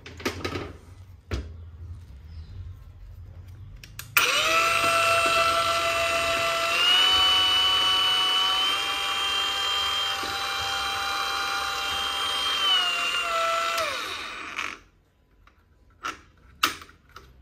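Hilti AG 4S-A22 cordless angle grinder's motor switched on and running free for about ten seconds with a high steady whine that steps up in pitch twice, then winding down. A few knocks of handling come before and after.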